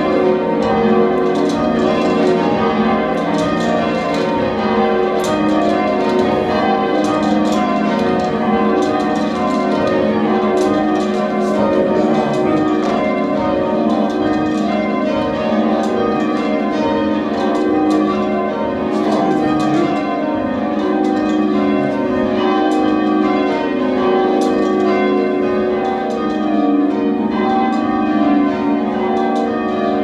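Church bells rung full-circle in change ringing, heard from the ringing chamber under the bells: a continuous run of rapid, overlapping bell strikes.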